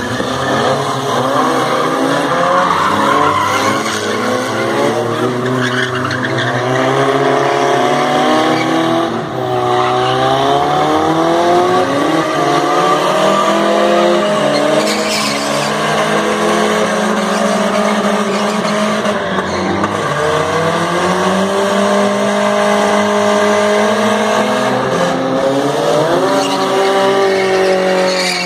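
Pickup truck engine held at high revs, the revs rising and falling again and again, while its rear tyres spin and squeal on concrete in a smoky burnout.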